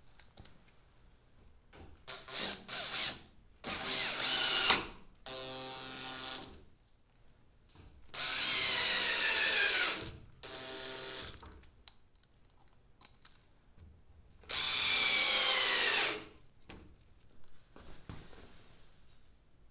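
Cordless drill driving screws into plywood in several short runs. In the two longest runs the motor's whine drops in pitch as it comes under load.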